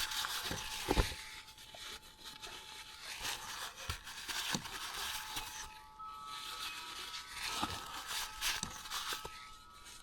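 A cloth rag rubbing and wiping around an ATV's oil filter housing, with a few light knocks and clicks of handling.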